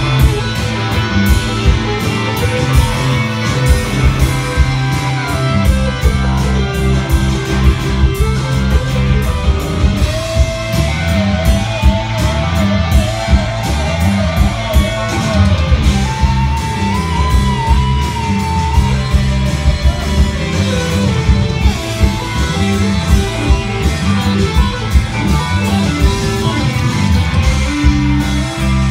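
Live rock band playing an instrumental passage: electric guitars, bass and drums, with regular drum hits under a steady bass line. From about ten seconds in, a lead line holds long notes with wavering vibrato, stepping up in pitch a little past the middle.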